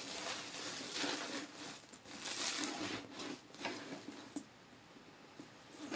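Plastic bag rustling and crinkling as a handbag is handled and opened, in noisy spells for the first three seconds or so, then quieter.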